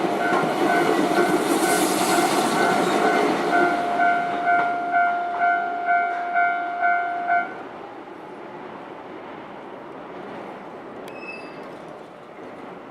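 Train passing over a Japanese level crossing while the crossing's warning bell rings in a steady pulse of about two strokes a second. The train noise dies away about three and a half seconds in. The bell stops suddenly about seven and a half seconds in, the signal that the crossing is clear.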